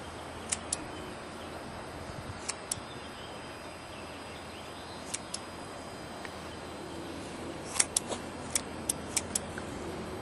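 Scissors snipping a Yorkshire terrier's fur: sharp little clicks, mostly in pairs a couple of seconds apart, then a quicker run of about seven snips near the end.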